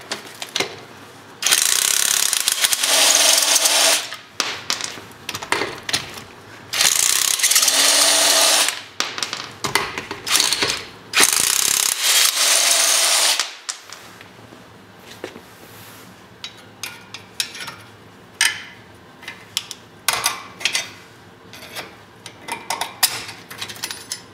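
A power tool run in three bursts of about two seconds each, each with a steady whine that rises slightly as it stops. It is followed by scattered metallic clicks and knocks of tools and parts being handled.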